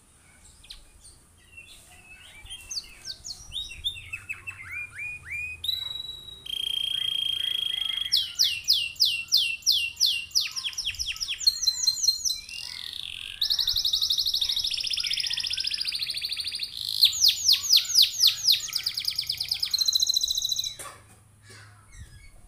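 Domestic canary singing one long song phrase. It starts softly with short twitters, builds into a held whistle, then runs of fast trills and a long rolling buzz, and stops abruptly about a second and a half before the end.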